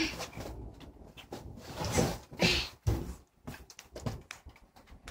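Cats eating wet canned food from a plate: soft chewing and licking with small knocks against the plate, and a couple of brief louder noises around two seconds in.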